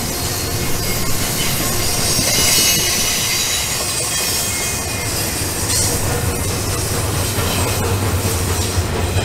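Model freight train running past on its track: a steady hum with the rolling rattle and squeal of the locomotive's and cars' small metal wheels on the rails.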